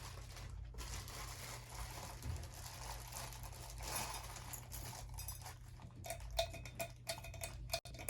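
Faint rustling and small clicks of ceiling-fan parts and packaging being handled during unboxing, busier in the second half, over a steady low hum.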